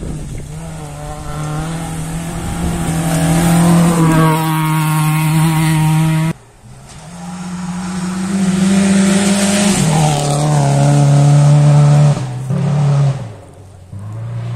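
Rally cars at full throttle on a gravel special stage, with a steady, loud engine note. The pitch drops about four seconds in and again about ten seconds in. About six seconds in, one pass cuts off suddenly and a second car's run begins.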